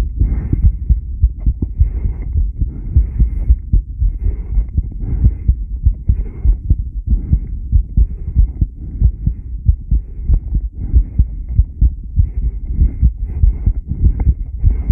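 Human heartbeat picked up at the chest, a steady repeating run of low thumps, with a faint hiss that comes and goes between them.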